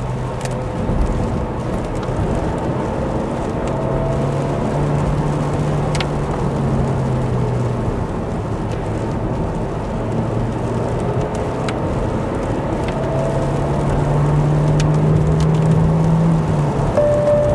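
Car driving on a wet road: the engine note rises twice as it accelerates and drops sharply near the end, over a steady hiss of tyres on wet tarmac.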